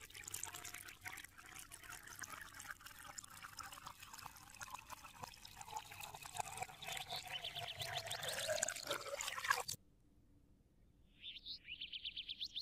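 Water running from a thin plastic hose, trickling and splashing onto a toy tractor and into a muddy puddle in sand, which stops suddenly about ten seconds in. A quick run of high clicks follows near the end.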